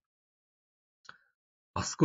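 Near silence broken by one short, faint click about a second in, then a man's speech resumes near the end.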